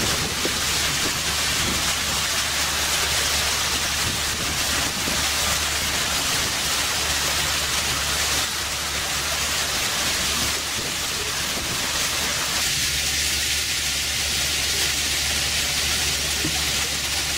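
Wooden river boat under way: a steady rushing noise of water and air past the open sides over a low, even engine hum.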